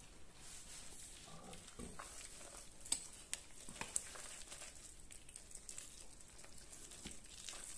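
Spoon stirring breadcrumbs into a sticky golden-syrup mixture in a plastic jug. It is faint, with irregular light scrapes and clicks, and two sharper clicks about three and four seconds in.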